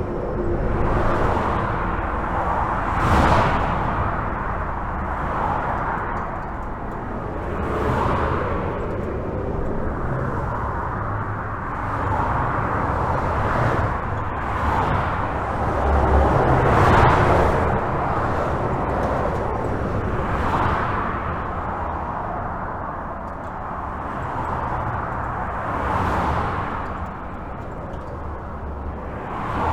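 Continuous highway traffic heard from under a bridge: a steady wash of tyre and engine noise, with individual vehicles swelling and fading past every few seconds, the loudest pass about halfway through.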